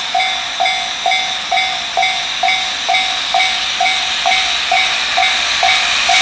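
Japanese railway level-crossing warning bell ringing steadily, about two clangs a second, as a freight train approaches. The train's hiss grows louder near the end.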